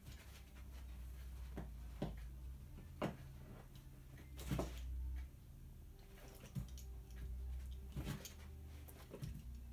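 A small dog's paws thumping and tapping as it jumps and pounces at an armchair: a handful of soft, scattered knocks over a low hum.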